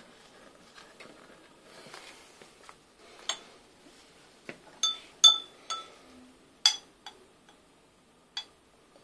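Laboratory glassware clinking: about seven sharp, ringing clinks of glass, scattered irregularly from about three seconds in, the loudest a little past the middle.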